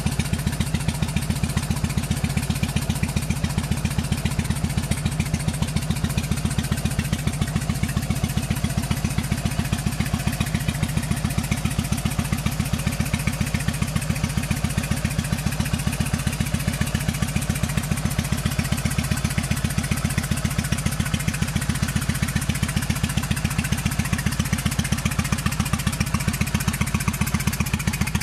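2003 Yamaha XVS1100 V-Star's air-cooled V-twin engine idling steadily with an even pulse.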